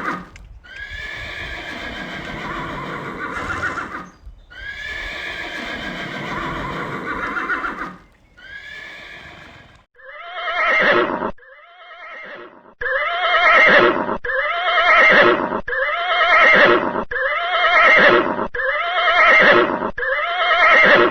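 Horses neighing and whinnying. In the first half come long whinnies over a rough, noisy background. From about halfway a short whinny repeats in quick succession, roughly a dozen times, and it stops abruptly at the end.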